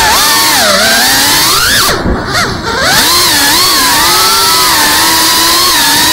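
Cinewhoop FPV drone's brushless motors and propellers whining loudly as picked up by the onboard camera, the pitch rising and falling with the throttle. About two seconds in the throttle drops off for roughly a second, then the whine picks back up.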